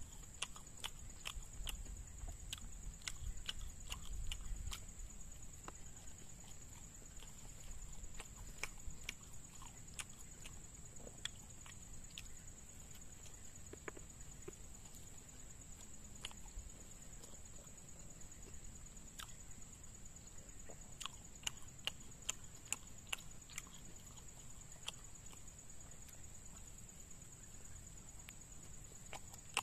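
Close-miked chewing and lip smacking while eating martabak with mung bean filling: a scatter of short wet mouth clicks, thickest in the first few seconds and again about two-thirds of the way through.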